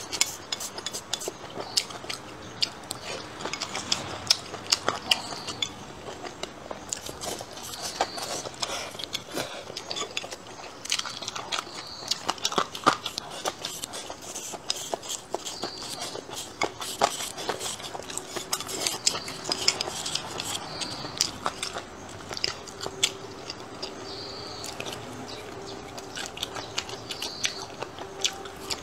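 Close-miked eating: wet chewing of pan-fried pork intestines with rice, with wooden chopsticks clicking and scraping against the bowl in many small sharp clicks throughout.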